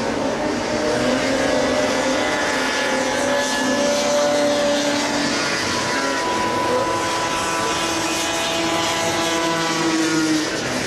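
Several racing snowmobile engines running on the ice oval, each at its own pitch, rising and falling slowly as the sleds circle.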